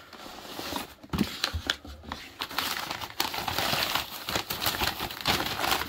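Cardboard shipping box handled with a few knocks, then packing paper rustling and crinkling as it is pulled open around a boxed item.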